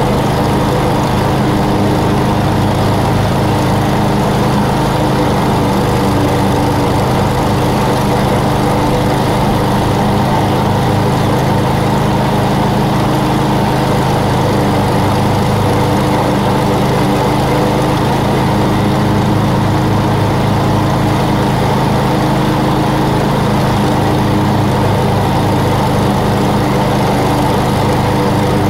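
Lawn mower engine running loud and steady, its pitch unchanging.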